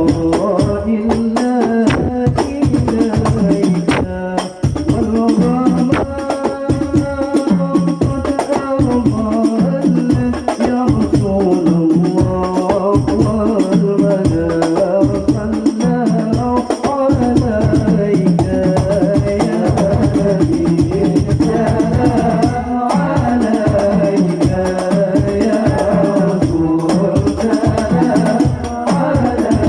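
Islamic devotional sholawat music: fast, steady hand-percussion with jingles driving continuously under a wavering melodic line.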